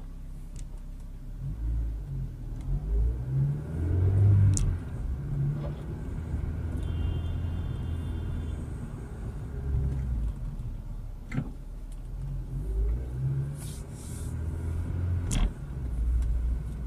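A car driving, heard from inside the cabin through a dashcam: a low rumble of engine and road noise that swells and fades, with a few sharp clicks.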